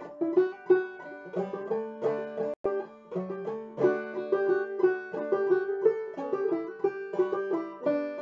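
Open-back banjo played clawhammer style, a single instrument picking out a waltz melody in the key of G with ringing plucked notes. The sound briefly cuts out for an instant about two and a half seconds in.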